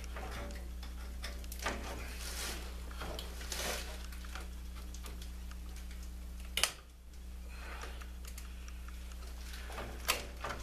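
Hands handling wiring and plastic switch connectors under a school bus dashboard: light clicks and rustling, with a sharp click about two thirds of the way in and another near the end, over a steady low hum.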